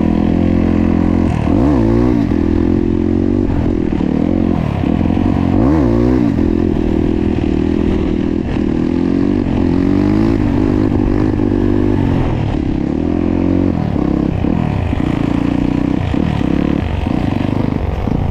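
Trail motorcycle with an aftermarket titanium-look exhaust running under way, heard from the rider's seat. Its engine note climbs and drops quickly twice, about two and six seconds in, as the throttle is blipped, and runs steadily between.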